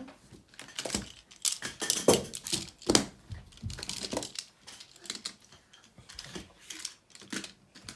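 Plastic magnetic building tiles being handled, clicking and clacking against each other in a run of irregular sharp knocks as they snap together.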